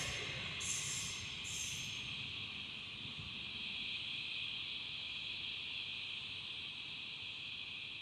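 A departing NSWGR 620/720 class diesel railcar fades away over the first couple of seconds, with a few last high rail hisses. It leaves a steady high-pitched chorus of insects.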